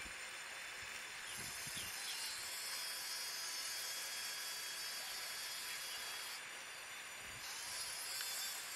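Steady outdoor hiss with a high-pitched band that drops out briefly, and a couple of short low wind rumbles on the microphone.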